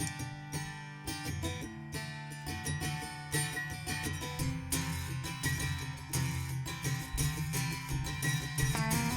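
Guitar playing the instrumental intro of a country song live, picked notes ringing over a low bass line.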